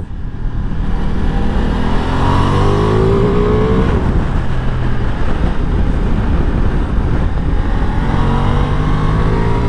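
Ducati Multistrada V4 Pikes Peak's V4 engine pulling hard, its pitch rising from about two seconds in and easing off around four seconds. It then picks up steadily again near the end, under a constant rush of wind and road noise from the moving bike.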